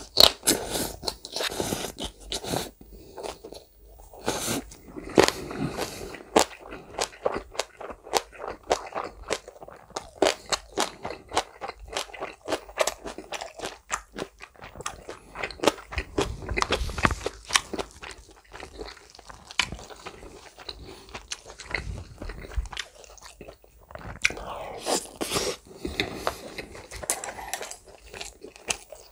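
Close-miked chewing of a mouthful of chicken mayo rice and green onion kimchi: a steady run of short, sharp clicks and smacks from the mouth.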